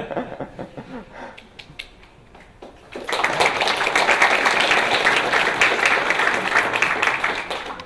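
Audience applauding: a few scattered claps at first, then about three seconds in the whole room joins in with steady clapping that tails off near the end.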